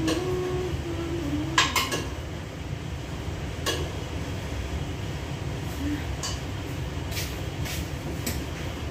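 Kitchenware clinking and knocking: a utensil against a ceramic pot and dishes, a short clatter of several knocks near two seconds in, then single clinks every second or so. Under it a steady low rumble of a kitchen range hood fan running.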